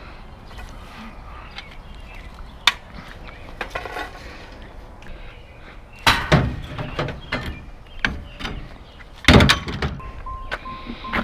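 Scrap metal being handled and loaded: a sharp click about three seconds in, then two loud clanging crashes, about six and nine seconds in, with smaller knocks between them and a short ringing tone after the second crash.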